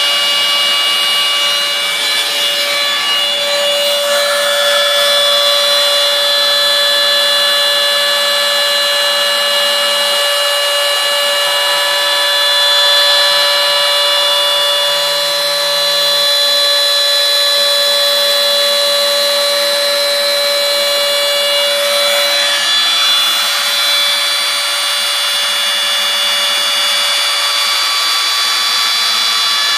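CNC router milling soft florist's foam: a very loud, steady whine of several high tones from the spindle and drives over a hiss as the bit carves the foam. One of the lower tones drops out about two-thirds of the way through.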